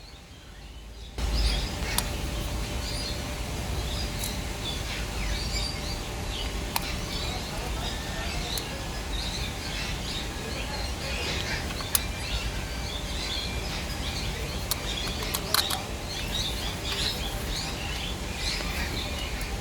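Birds chirping over a steady low rumble, with a few sharp clicks scattered through. The sound comes in abruptly about a second in.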